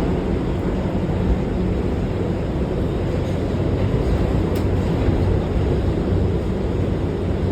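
R211A subway car running along the track, heard from inside the car: a steady rumble of wheels and running gear with no chime or tones.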